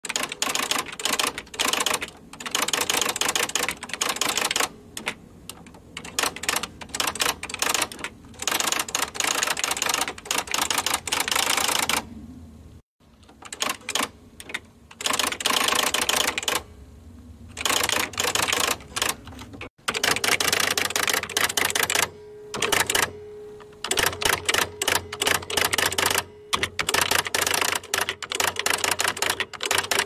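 Electric typewriter being typed on in runs of rapid keystrokes with short pauses between them, over a low steady hum.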